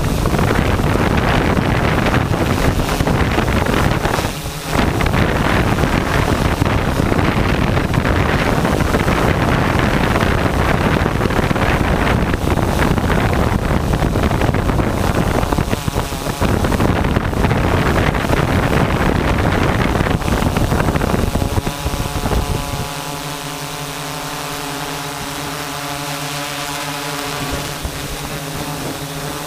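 Wind buffeting the microphone over a running vehicle engine; a little before the end the rush stops and the engine settles to a steady idle hum.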